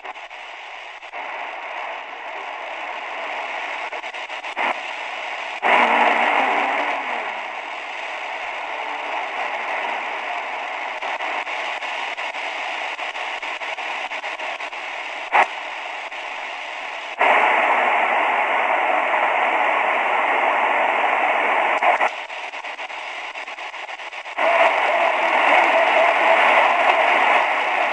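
SuperSonic portable world-band radio's speaker giving off hiss and static while it is tuned across the shortwave band, jumping abruptly louder a few times as it lands on stronger signals and dropping back once. Two short clicks come through along the way.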